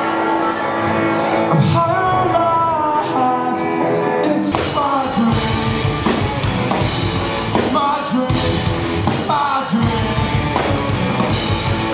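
Live rock band playing loud: a singer over electric guitars, with the drums and bass coming in hard about four and a half seconds in.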